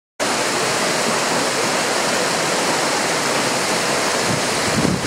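Water pouring over a low stepped weir in a small stream: a steady, even rushing.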